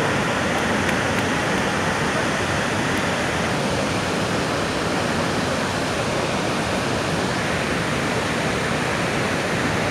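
Niagara Falls: the steady, unbroken rush of a huge volume of falling water.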